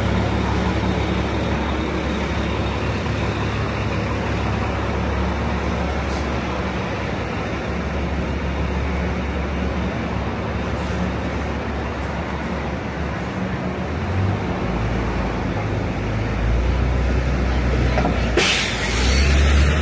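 Busy city street traffic: a steady rumble of engines with a wash of road noise. About a second before the end, a sudden loud hiss breaks in.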